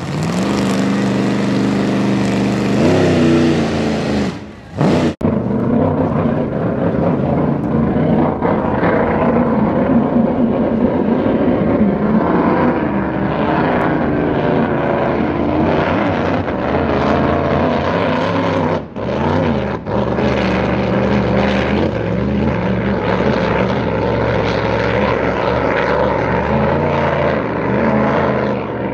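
Grand Prix racing hydroplane's engine running hard as the boat planes across the water, a loud steady drone. Its pitch climbs around three seconds in and again near twenty seconds, each time after a brief drop in level.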